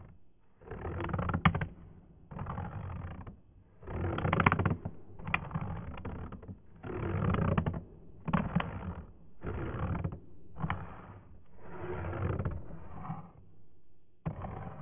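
Wooden match head scraped again and again along a matchbox striker strip without lighting: about ten rough scraping strokes, roughly one a second, slowed down and pitched very low.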